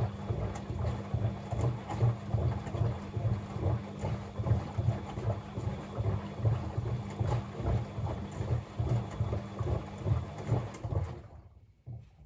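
Bosch WFCX 2460 washing machine tumbling a soaked blanket: the drum motor hums and the water and load slosh in an even rhythm of about one and a half beats a second. The tumbling stops about eleven seconds in.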